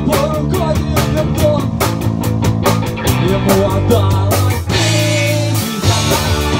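Instrumental section of a rock song: a guitar playing a lead line with bending notes over bass and steady drum beats.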